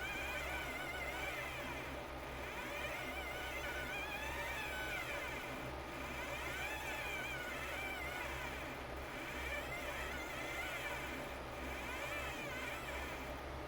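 Stepper motors turning the knobs of a CNC-driven Etch A Sketch, whining in repeated arcs of pitch that rise and fall as the motors speed up and slow down, over a steady low hum.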